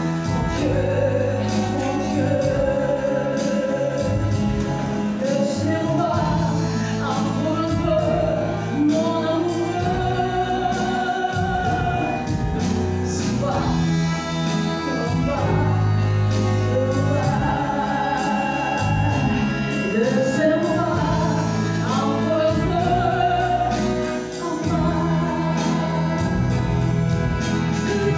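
A woman singing a French chanson with a live band, piano and drums keeping a steady beat.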